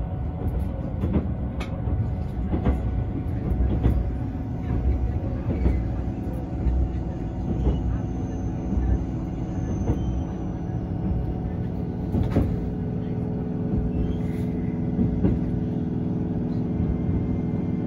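Ride noise inside a moving JR East 651 series electric train: a steady low running rumble, with wheels clicking over rail joints now and then.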